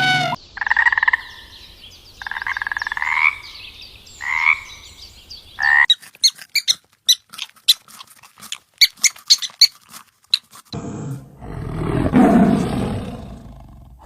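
Animal calls in three parts. First come about four rasping, pulsed calls, each a second or less. Then a quick run of sharp clicks and short chirps follows, and from about eleven seconds in a low, rough growl.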